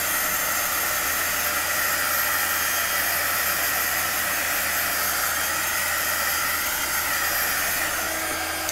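A 300-watt heat embossing tool (a small heat gun) running, its fan blowing hot air in a steady hiss with a faint high whine, over wet acrylic paint. It is switched off abruptly at the very end.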